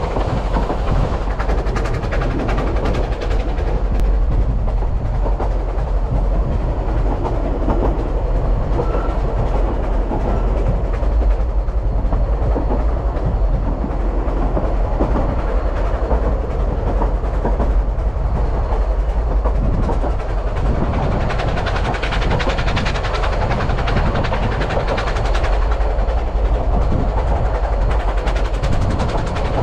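Vale of Rheidol narrow-gauge steam train carriages running along the line, heard from on board: a steady rumble and rattle of wheels on the rails.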